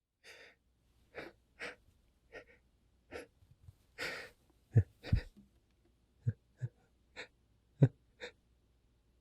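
A man's quick, catching breaths, gasps and sniffs, about a dozen short ones in uneven succession, as a sneeze builds. Three of them are louder and chesty, near the middle and toward the end.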